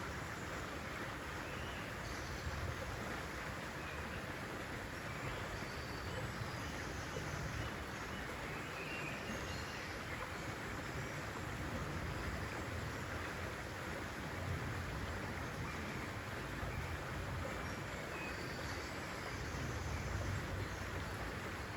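Steady rushing water, with a low rumble that swells and eases every few seconds.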